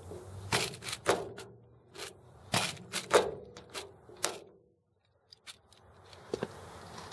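Long-handled lever rivet gun worked stroke by stroke to set a closed-end aluminum blind rivet in an aluminum boat hull. There are about seven sharp clacks and snaps over the first four seconds or so, the loudest a little after three seconds, then a few faint clicks near the end.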